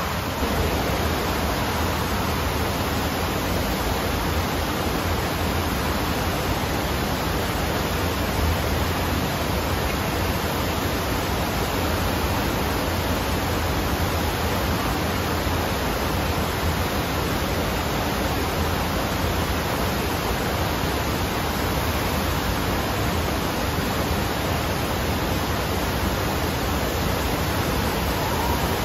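Steady rush of water pumped in a thin sheet up the padded slope of an indoor sheet-wave surfing simulator, an even hiss at a constant level with a low hum underneath.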